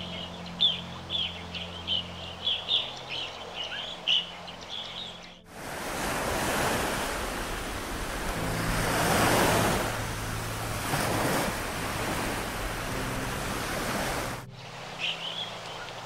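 Birds chirping over soft background music, then a loud, steady rush of water cuts in abruptly about five seconds in. The rush stops just as suddenly some nine seconds later, and the chirping returns.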